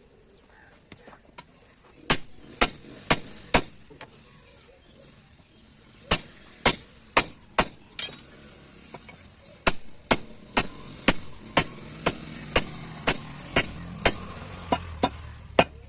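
Blacksmith's hand hammer striking metal in three runs of blows, about two a second: four, then five, then a longer run of about a dozen.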